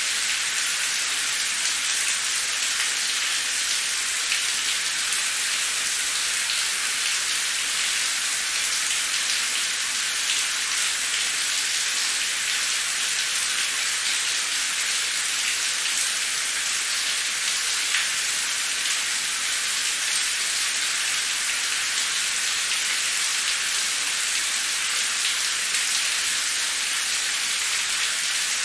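Steady rain falling on a street: an even, unbroken hiss with a fine patter of drops.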